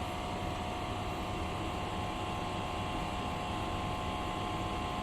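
Steady hum and fan noise, with a faint constant whine, from the RY 500B HSS saw blade grinder just after power-on while its control program loads.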